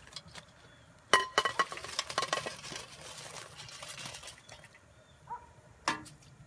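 Aluminium deep-fryer basket of fries clanking on the pot: a sharp ringing metal knock about a second in, followed by a few lighter rattles. Fries are then tipped into a glass bowl and the empty basket is set back on the pot with another clank near the end.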